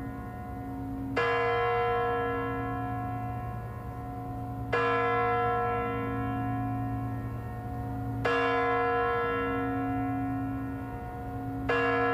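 A deep bell struck four times, about three and a half seconds apart, each stroke ringing on and slowly fading, over a steady low drone in the background soundtrack.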